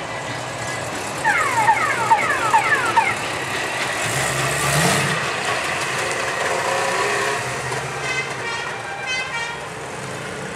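A line of cars driving past one after another, engines running and tyres on the road, with one engine revving up and back briefly about five seconds in. Early on, a quick run of falling high tones sounds over the traffic.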